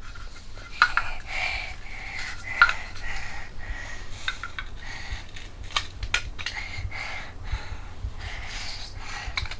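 Toy food pieces being handled and knocked together, giving scattered light clicks and clatters with bits of rustling.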